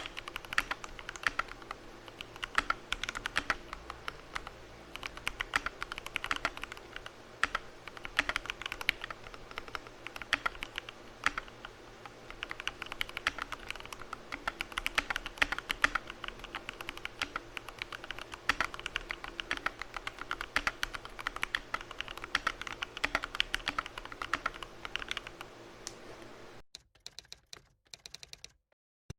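Mechanical keyboard with lubed Cherry MX Vintage Black linear switches, XDA keycaps and an acrylic case being typed on fast and continuously. The keystrokes stop shortly before the end, leaving a few last isolated key clicks.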